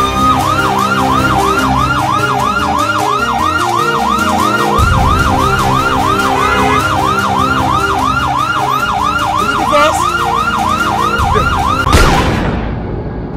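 Emergency-vehicle siren: a rising wail that switches to a fast yelp, sweeping up and down about three times a second over low, sustained music. It cuts off with a sharp hit near the end.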